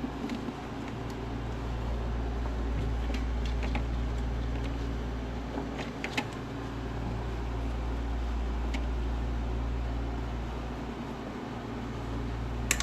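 Steady low hum in the background, with a few light clicks and rustles of spark plug wires being handled and routed around the engine.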